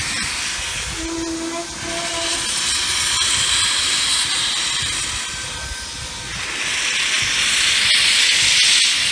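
Steam hissing from Nickel Plate Road 765, a 2-8-4 Berkshire steam locomotive. The hiss swells and eases in waves and is loudest near the end. A brief low tone sounds about a second in.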